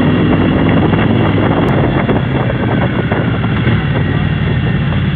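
2023 Triumph Speed Twin 900's parallel-twin engine through its stock exhaust, running steadily while the bike rides along, picked up by a helmet-mounted mic.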